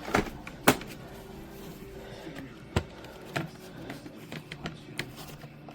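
Sharp plastic clicks and knocks from handling a bagless upright vacuum's dust cup and filter, about half a dozen spread over a few seconds, with the motor off.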